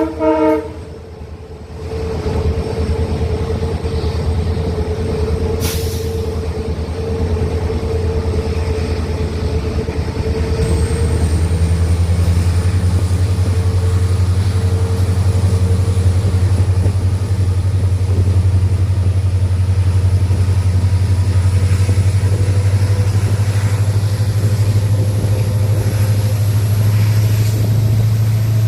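WDP4D diesel-electric locomotive's 16-cylinder EMD two-stroke engine humming steadily, growing louder about eleven seconds in, with a faint high whine that slowly rises in pitch. The last of a horn blast cuts off about half a second in.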